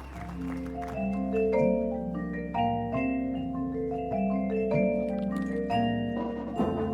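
Drum corps front ensemble mallet percussion (marimbas and vibraphones) playing a passage of ringing, sustained chords that change about every half second, with fuller ensemble sound building near the end.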